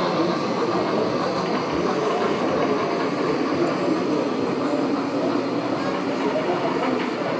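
Steady hubbub of a busy exhibition hall: many indistinct voices blending into a constant background murmur.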